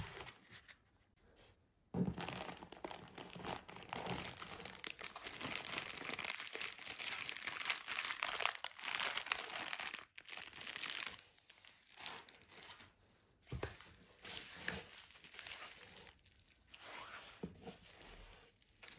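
Plastic packaging and cardboard crinkling and rustling as bubble-wrapped items and a zip-lock bag are handled in a shipping box. It is dense for several seconds from about two seconds in, then comes in shorter spells with quiet gaps.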